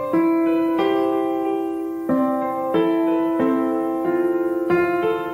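Background music: a slow, gentle piano melody, each note struck and left to ring, a new one about every two-thirds of a second.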